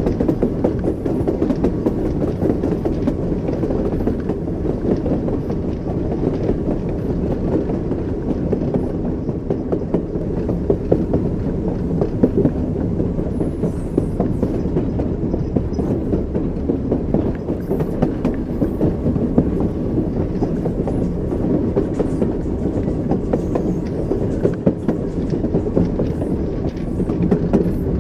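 Train wheels rolling over the rails with a steady low rumble and the clickety-clack of the wheels over rail joints, the knocks coming irregularly.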